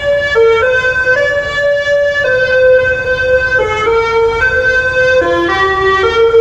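Background music: a simple electronic melody of held notes stepping up and down, over a low rumbling noise.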